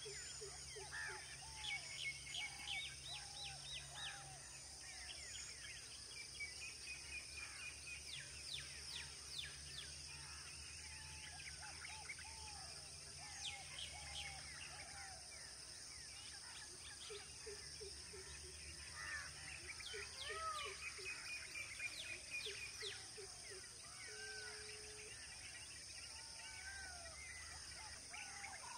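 Outdoor nature ambience: many birds chirp and call throughout, with repeated short arched notes and quick descending whistles, over a steady high hiss.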